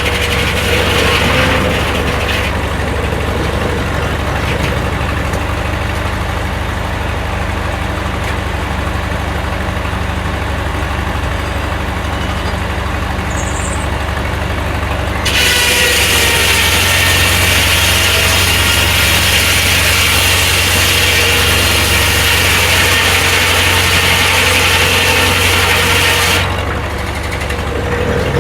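A Corley circular sawmill's engine runs steadily. About halfway through, a loud hissing cut comes in suddenly and lasts about eleven seconds: the blade sawing through a log. It then drops back to the running engine.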